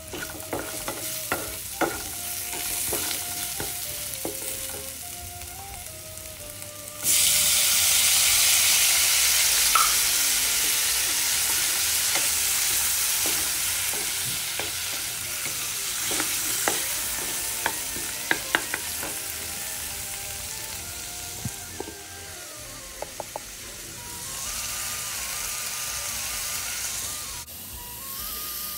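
Fish, onion and chilli frying in oil in a frying pan, stirred and scraped with a wooden spatula. About seven seconds in the sizzle jumps suddenly much louder, as chopped tomatoes go into the hot oil, then slowly eases off.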